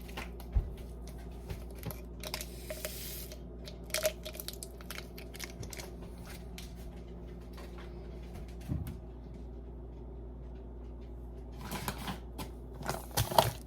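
Scattered light knocks and clicks of objects being handled, with a brief rustle about two and a half seconds in, over a low steady hum.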